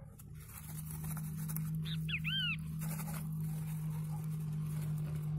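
A steady low hum, with a quick run of three short, high, arching animal chirps about two seconds in.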